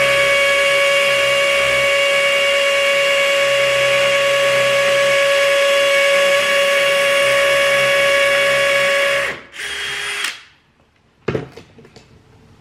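Cordless drill running at a steady speed with a high whine as it bores a hole into the wall for a wall plug; it stops about nine seconds in, gives one short second burst, then cuts out. A single sharp knock follows near the end, then a few light clicks.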